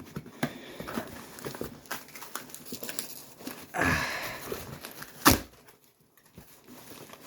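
Hands tearing open and handling a plastic shipping package: scattered light crinkles and clicks, a longer rustle about four seconds in, and one sharp knock a little after five seconds.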